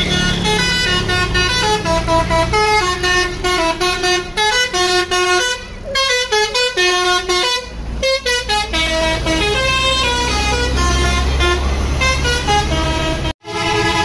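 Bus 'telolet' musical horn on a coach playing a stepping multi-note melody, with short pauses between phrases. The coach's diesel engine rumbles underneath, louder as it passes close, and the sound cuts off abruptly near the end.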